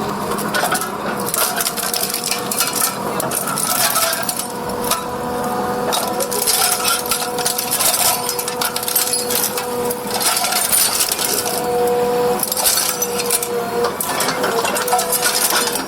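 Seized metal vehicle air horns being crushed under a road-roller drum mounted on an excavator, a dense run of sharp metallic crunches, cracks and clinks. A steady high tone runs underneath.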